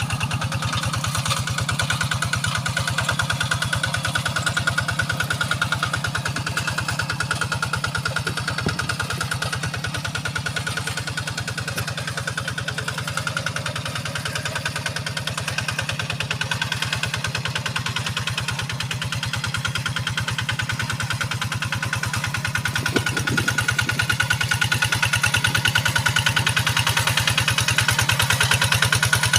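Kubota RD85 single-cylinder diesel engine on a hand tractor running steadily under plowing work, with a rapid, even chugging. It eases off a little around the middle and gets louder again near the end.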